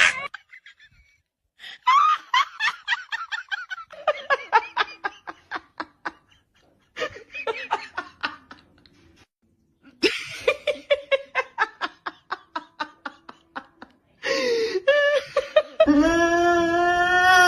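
Laughter in several runs of quick, rhythmic bursts, separated by short pauses. Near the end a long held, wavering pitched tone comes in.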